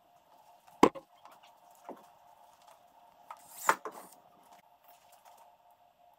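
Hands and a tool working at a pickup's plastic rear bumper around the license plate: a sharp knock about a second in, a lighter tap, then a short harsh scraping burst in the middle, over a faint steady hum.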